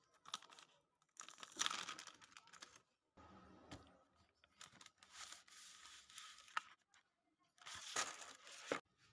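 Clear plastic wrapper on a pack of drawing paper being torn open at its seal and peeled back. The film tears and crinkles in about five bursts, each up to two seconds long, with short pauses between them.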